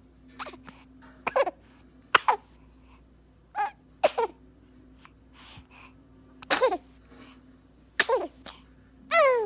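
A baby sneezing again and again: about six sharp sneezes a second or two apart, each ending in a high voice that falls in pitch, with a few softer ones between.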